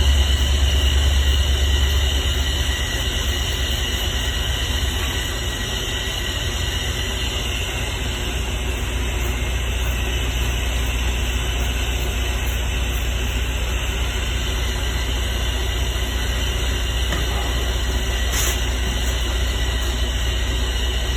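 Steady low machine hum with faint, even high-pitched tones above it, slightly louder in the first couple of seconds.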